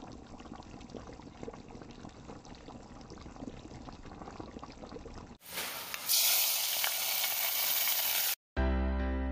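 Chicken biryani masala bubbling softly in an open pressure cooker. About five and a half seconds in it gives way to a much louder sizzle as hot ghee tempered with black pepper and cumin is poured into ven pongal. Background music starts near the end.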